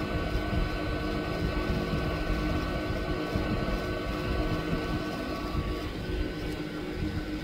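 Hot-air rework station blowing a steady stream of hot air onto a phone circuit board, its fan running with a steady whine over the rush of air; the higher whine weakens about six seconds in as the nozzle is lifted away.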